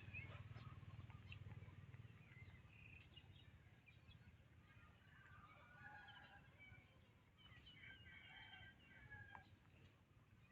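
Faint scattered bird chirps over a low steady hum, busiest in the second half.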